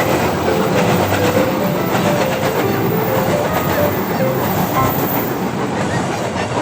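Train passing close by: a loud, steady rush of wheels clattering over the rails.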